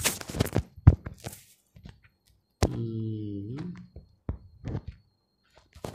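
Sharp clicks and knocks of handling noise close to the microphone, loudest about a second in, with a man's short hummed vocal sound about halfway through and a few more clicks near the end.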